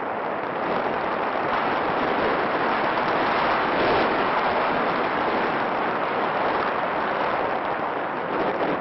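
Steady rushing air noise on an FPV drone's onboard camera microphone as it flies, swelling slightly in the middle.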